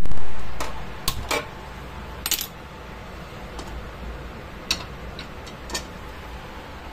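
Gas stove burner lit with a hand-held spark gas lighter: a loud bump at the start, then a few sharp clicks over the first two seconds or so. Metallic clinks follow as a kadhai is set down on the burner's grate.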